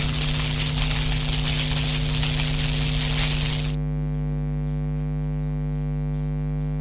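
A steady electrical hum, a buzz of several even tones, with a loud hissing noise on top that cuts off suddenly a little over halfway through, leaving only the hum.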